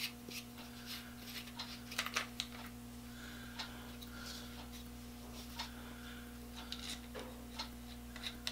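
Small clicks and taps of hand-handled parts: small black fittings worked off a rotary-tool drill-press holder and set down on a wooden bench, with a cluster of louder knocks about two seconds in. A steady low hum runs underneath.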